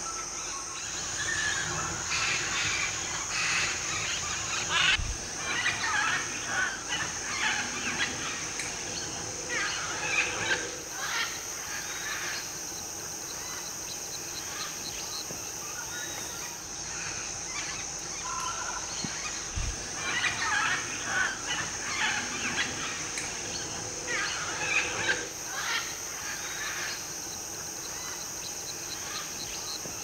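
A flock of macaws squawking in harsh, overlapping calls, coming in two spells with a lull of several seconds midway. Beneath them runs a steady high drone of rainforest insects.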